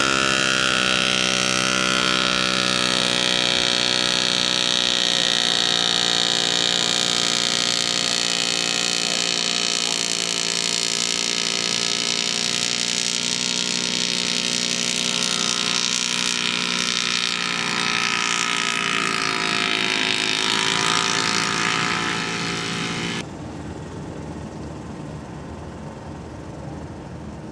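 Small ultralight aircraft engine running steadily with its propeller, the pitch sagging slightly and coming back up a couple of times. It cuts off abruptly near the end, leaving quieter outdoor background noise.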